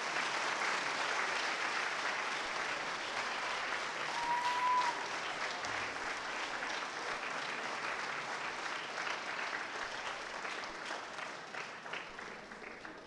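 Audience applauding, dense clapping that thins out and fades near the end, with one short high call about four seconds in.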